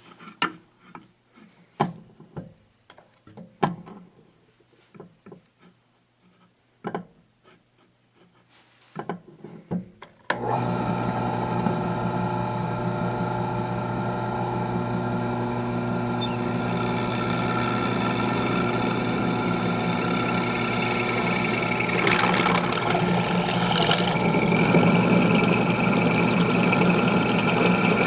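Scattered clicks and knocks of handling, then about ten seconds in a drill press switches on suddenly and runs steadily with a hum of many tones. It grows louder in the last several seconds as it drills through the aluminium tubing for a U-bolt hole.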